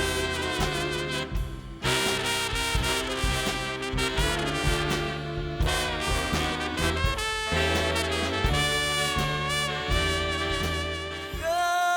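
Swing-style big band music with brass, trumpets and trombones, playing an instrumental passage from a musical.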